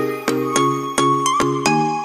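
Upbeat intro jingle music: short pitched chords struck in a quick, even rhythm, the notes stepping up and down.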